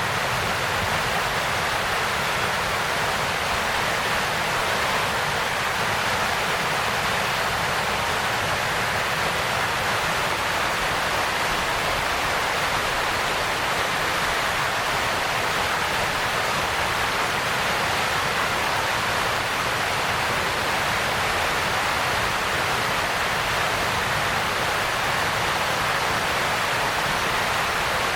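Waterfall pouring, a steady even rush of water with no changes.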